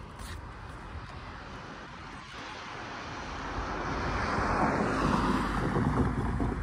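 Amtrak diesel passenger train approaching, a broad rumble that swells steadily and is loudest near the end.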